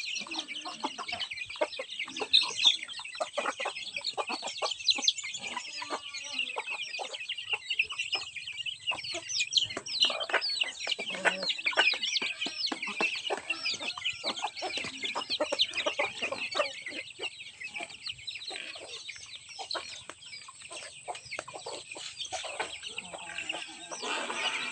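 Chickens clucking and small chicks peeping continuously as they feed on scattered rice, with many short sharp clicks throughout.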